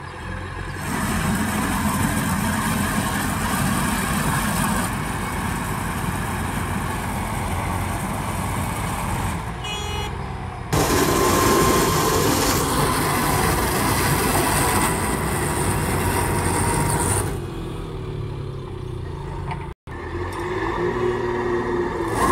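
Diesel engines of a JCB backhoe loader and a combine harvester running, with the backhoe pulling the mud-stuck harvester on a tow rope. The sound is a continuous heavy engine rumble that changes abruptly in level several times.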